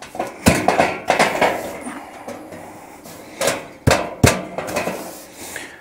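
Stainless stovepipe of a Camp Chef Alpine cylinder wood stove being pounded down by hand into the stove's flue collar: about five sharp metallic knocks with brief ringing, two in the first second and a quicker three a little past the middle. The pipe is being forced to seat deeper in the collar, where it goes only about half an inch.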